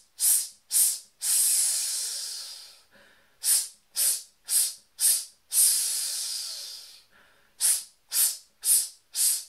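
A man hissing in a breath-support exercise for singers: runs of short sharp hisses, about two a second, each run ending in one long hiss that fades away. Each short hiss is a pulse of the lower breathing muscles, and the long hiss keeps them switched on.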